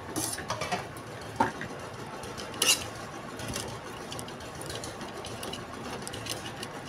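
Metal spatula stirring and scraping chopped dates as they roast in ghee in a metal kadhai, with scattered clicks and knocks of the spatula against the pan, the loudest a little under three seconds in, over a low steady hiss.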